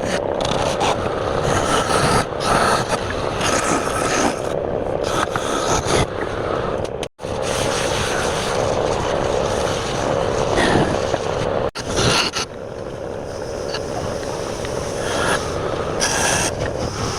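Wood lathe running while a hand-held turning tool scrapes and cuts the spinning wood, a steady grinding drone with rough scraping on top. The sound drops out sharply twice, for a split second each time.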